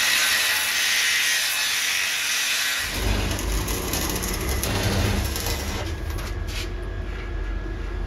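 Handheld angle grinder with an abrasive disc cutting into a steel gate frame, a steady hissing grind, to open a hole for a lock. About three seconds in, a low rumble joins and the high grinding hiss eases off.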